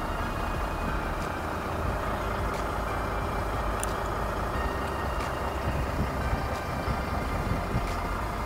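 A truck engine runs steadily, heard from inside the cab, with a few faint clicks as a diagnostic cable connector is handled.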